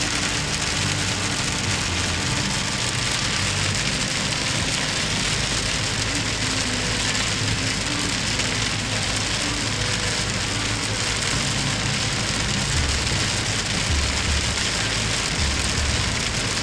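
Heavy rain falling steadily on a car's windshield and body, heard from inside the moving car over the low, steady noise of the car on the wet road.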